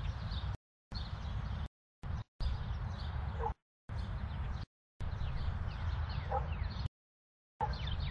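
Suburban neighborhood ambience: birds chirping over a steady low rumble. It is broken by several abrupt dropouts to dead silence.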